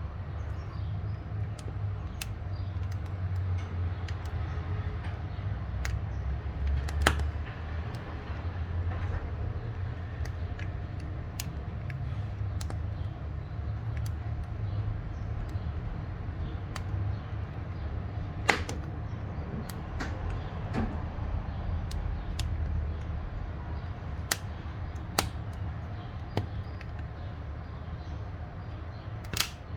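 Wood fire burning in a wood-fired cookstove: a steady low rumble of the flames with scattered sharp crackles and pops from the burning wood, a louder pop about a quarter of the way in and another a little past the middle.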